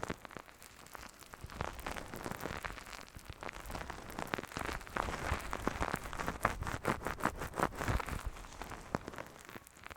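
Close-miked ASMR ear massage: fingers working a milky lotion over an ear, giving a dense, irregular wet crackling that grows busier in the second half.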